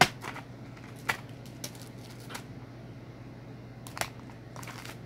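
Pencils, markers and a pencil tube being handled and set down on a cloth: a sharp knock right at the start, smaller knocks about a second in and near four seconds, with light clicks and rustling between. A low steady hum runs underneath.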